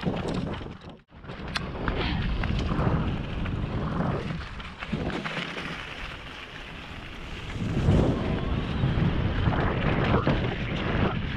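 Wind buffeting a helmet-mounted GoPro microphone on a mountain bike descending a dirt trail, with tyre rumble and scattered clicks and knocks from the bike over the rough ground. The sound cuts out briefly about a second in.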